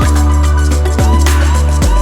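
Electronic background music with heavy sliding bass notes and a steady beat.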